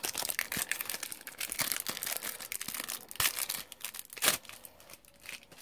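Foil wrapper of a Topps Match Attax card pack being torn open and crinkled: a dense run of crackling with a louder crackle about four seconds in, dying down near the end.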